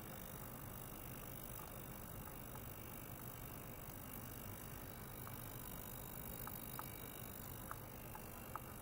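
Faint steady hiss and low hum of an ultrasonic cleaning bath running, with a few faint short ticks in the last few seconds.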